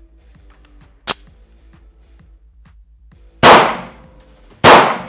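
Two 9mm shots from a SIG Sauer P229 pistol about a second and a quarter apart, each trailing off in the echo of an indoor range. About a second in, a single sharp metallic click of the pistol's slide being worked comes before them.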